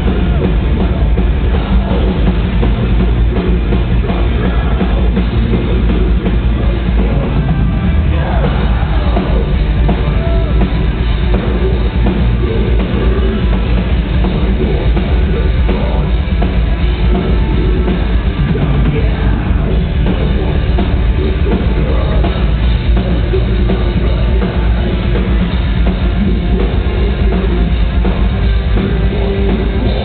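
Metalcore band playing live: distorted electric guitars and a pounding drum kit at full volume. Heard from the crowd through a small camera microphone, the sound is heavy in the bass and dull at the top.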